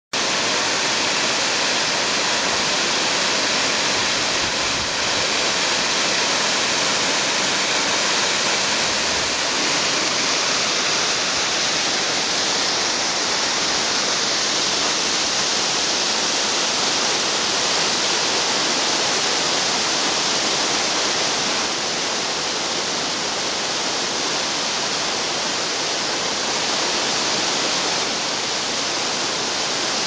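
Ratera waterfall pouring over rocks: a steady, even rushing of falling water.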